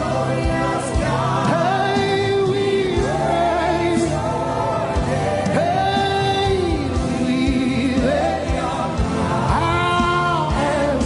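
Live gospel worship music: voices singing long, held and wavering notes over a band's steady backing with drum beats.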